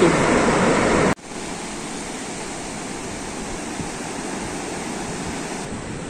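Steady wash of surf on a flat sandy beach. A louder rush of noise in the first second cuts off abruptly.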